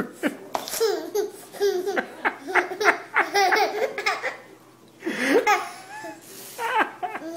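A one-year-old baby laughing in a string of short bursts, with a pause and a breathy burst near the end.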